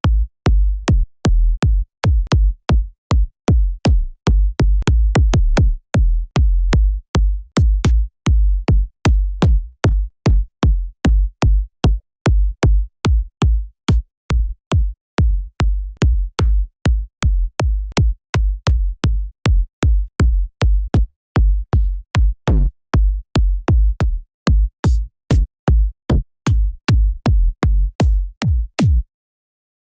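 EDM kick drum one-shot samples played one after another. Each is a sharp click on top of a deep, short low boom, at about two to three hits a second. They stop about a second before the end.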